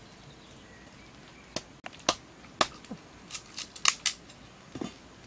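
A knife blade hacking and cutting at a wooden stick, making a series of sharp, irregular cracks and clicks from about a second and a half in.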